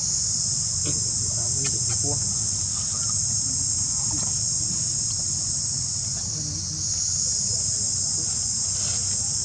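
A steady, high-pitched insect chorus that softens briefly about two-thirds of the way through, over a low steady rumble.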